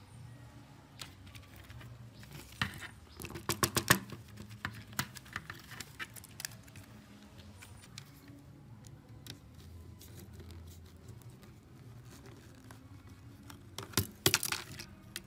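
Plastic telephone keypad parts (key caps and button frame) clicking and rattling against the plastic phone housing as they are pulled out and handled, in a quick cluster of clicks a few seconds in, scattered single clicks after, and another cluster near the end.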